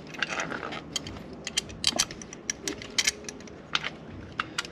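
Irregular light metallic clicks and scrapes as an Accel Performance ignition coil and its mounting bolt are fitted by hand into the coil's bracket.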